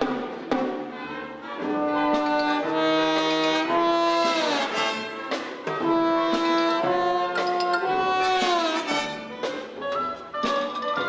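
Pit orchestra playing ballet music: sustained chords that slide downward twice, about halfway through and again near the two-thirds mark, punctuated by percussion strikes.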